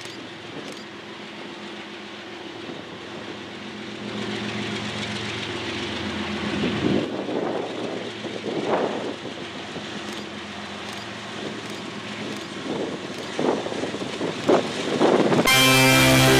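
Union Pacific diesel freight locomotive approaching with a steady engine drone and rail noise that swells and dips. Guitar music cuts in near the end.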